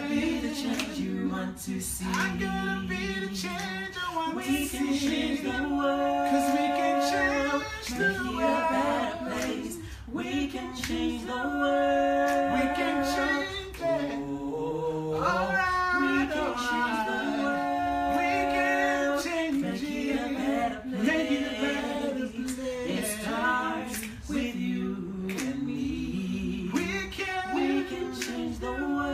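A cappella vocal group singing a slow song in harmony, unaccompanied voices holding long notes with vibrato.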